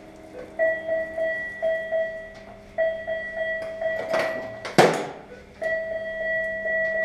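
Operating-room electronic equipment beeping: one steady tone sounding in long pulses with short gaps. A rustle about four seconds in and a sharp click just before five seconds break in, the click being the loudest sound.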